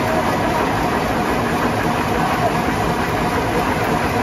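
Industrial jacquard looms weaving wool at full speed: a loud, steady mechanical clatter.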